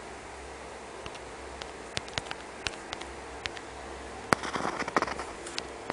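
Fingertip taps and clicks on a smartphone touchscreen while typing on the on-screen keyboard. Single taps are scattered through the first few seconds, then a quick run of taps comes about four and a half seconds in, over a low steady hum.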